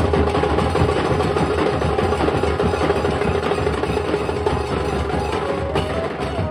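Nasik dhol ensemble: many large barrel-shaped dhol drums beaten with sticks together, a loud, dense, steady drumming rhythm.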